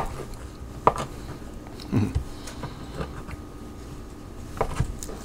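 Kitchen knife cutting through a block of Velveeta cheese and knocking on a wooden cutting board: a few sharp knocks spaced about a second apart, a quiet stretch, then two quick knocks near the end.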